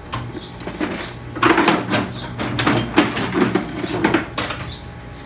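Handling clatter of tools and metal pump parts: a run of knocks, clinks and scrapes, busiest between about one and a half and four and a half seconds in, over a low steady hum.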